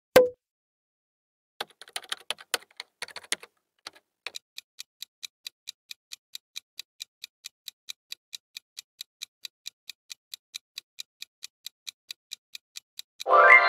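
Clock-ticking sound effect for a countdown timer: an even train of sharp ticks, about four a second, starting about four seconds in. Before it come a short pop at the start and a couple of seconds of irregular, typing-like clicks.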